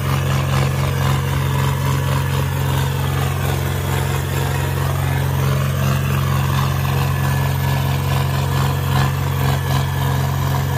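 Tractor's diesel engine running at a steady, unchanging pace under way on the road, heard from the driver's seat.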